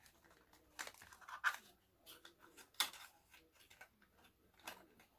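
A few scattered light clicks and taps, with faint rustling, from a cologne bottle and its packaging being handled and tried for opening.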